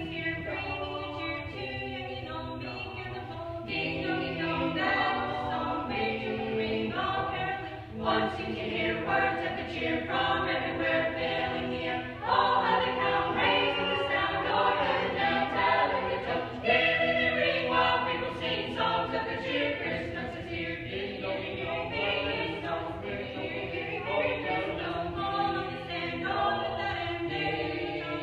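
Mixed group of men's, women's and children's voices singing a Christmas carol in harmony, a cappella, growing louder for a few seconds midway.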